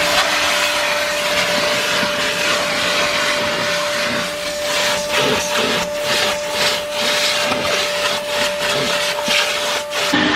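Car-wash vacuum running with a steady whine and rushing suction as its hose nozzle is worked over a car's rear seat. From about halfway the suction rises and falls in quick strokes as the nozzle is swept back and forth across the upholstery. The sound cuts off abruptly just before the end.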